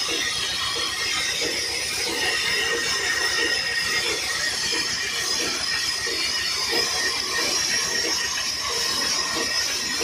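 Sawmill machinery running steadily: a constant high hiss and whine, with a low rattle repeating about two to three times a second.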